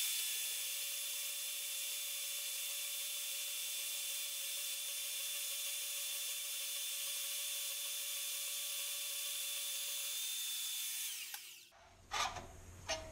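DeWalt portable band saw running steadily as it cuts through 3/4-inch square mild steel bar, a hissy whine with a faint steady tone. About eleven seconds in it is switched off and winds down, falling in pitch and fading out.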